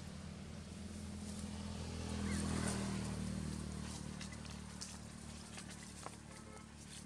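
Low, steady engine hum of a motor vehicle, swelling about two and a half seconds in and then easing off, with a few light crackles of dry leaves underfoot near the end.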